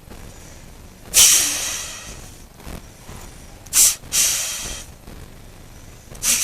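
A homemade buck wheeze call, a drinking straw with its paper wrapper, blown in sharp hissing bursts to imitate a buck deer's wheeze. One burst comes about a second in, a short puff and a longer burst near four seconds, and another starts at the end; each hits hard and fades.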